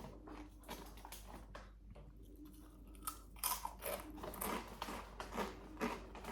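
Someone chewing crunchy rolled tortilla chips (Volcano Takis) with the mouth close to the microphone: soft chewing, then from about halfway louder, sharp crunches in quick succession.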